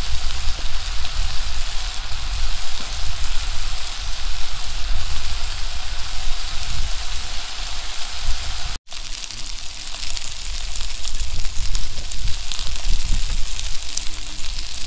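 Food sizzling and spitting in a pan on a Trangia alcohol stove: a steady dense hiss with fine crackles, over a low rumble. The sound cuts out for an instant about nine seconds in.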